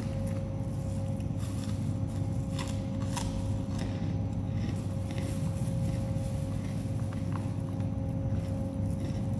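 Steady low background rumble with a constant faint hum tone, over which a few soft clicks and taps of eating from a boxed meal, utensil against the food box, come now and then.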